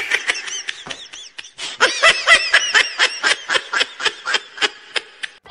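Snickering laughter: a run of short, high-pitched laughing pulses, about four a second, faint at first and louder from about two seconds in.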